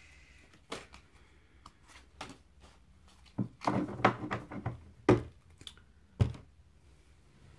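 Oracle card deck being shuffled by hand, with a few sharp knocks of the cards against the tabletop; the two loudest knocks come in the second half, after a brief patch of quick shuffling sounds.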